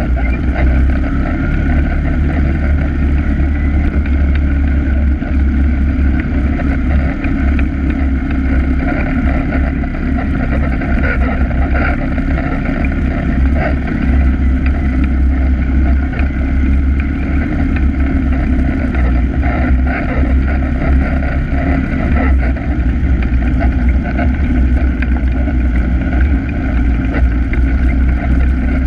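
ATV engine running steadily at trail-cruising speed, heard from a camera mounted on the machine: a loud, constant low rumble with little change in pitch.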